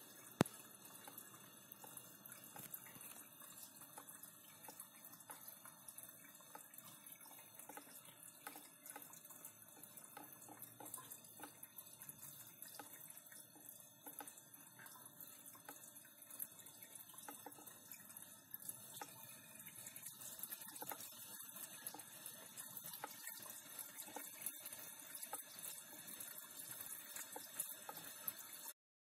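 Water from the kitchen sink running and trickling down through the drain and a plastic bottle trap under the sink, faint and steady with small drips and splashes, a little louder in the last third.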